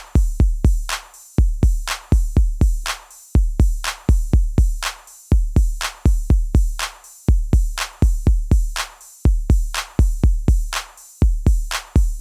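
Background electronic music: a drum-machine beat of deep kick drums and sharp snare hits, about one snare a second.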